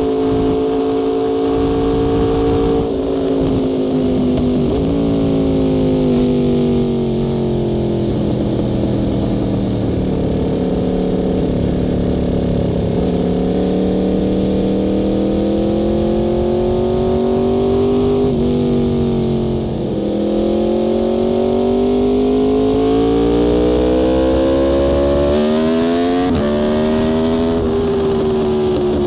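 Aprilia Tuono V4 R's V4 engine under way at speed, its pitch climbing under throttle and dropping abruptly at quick gear changes near the start, sinking slowly as the throttle eases, then climbing again with several more sharp shifts near the end.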